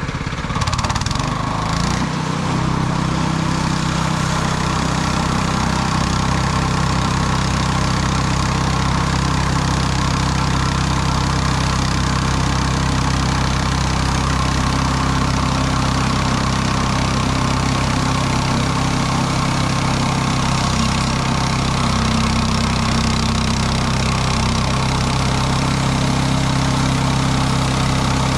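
Gas engine of a Mechmaxx SM-22 portable band sawmill running steadily. Its pitch shifts in the first couple of seconds, then holds.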